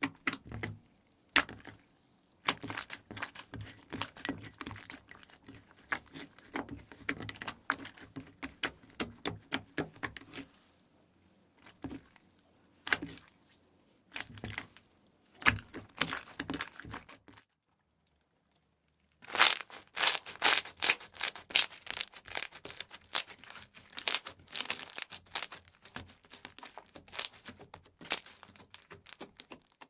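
Slime being squished and stretched by hand, making fast runs of crackling pops and clicks, broken by short pauses and one fully silent gap of about a second and a half some two-thirds of the way in.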